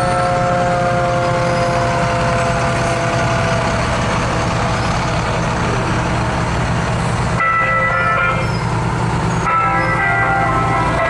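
Fire engines' motors running as they drive past in a line. A siren winds down with slowly falling tones over the first few seconds, and a horn sounds twice in the second half.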